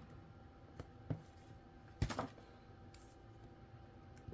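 Faint handling sounds of paper and tear-and-tape being worked by hand: a few short taps and rustles, the loudest about two seconds in.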